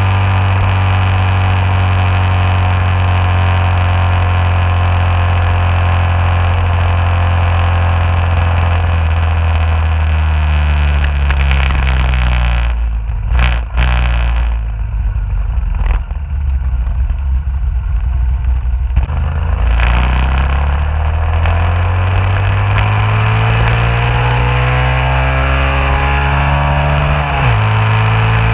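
Yamaha 135LC motorcycle's small single-cylinder engine and wind rush heard from a low-mounted camera. The engine runs steadily, drops off as the bike slows about a third of the way in, and goes quieter with a few sharp clicks. Then it climbs in pitch as the bike accelerates, with a sudden drop in pitch near the end as it shifts up a gear.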